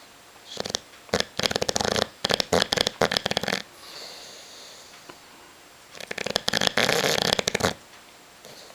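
English bulldog snoring loudly in its sleep. There are two long, rattling snores, one starting about a second in and running for over two seconds, the other near the end, with quieter breathing between them.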